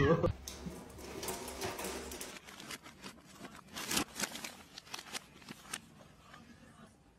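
Soft, irregular scratchy taps and paper rustles as a cat paws at a paper bag. The loudest tap comes about four seconds in, and the sound fades to near silence near the end.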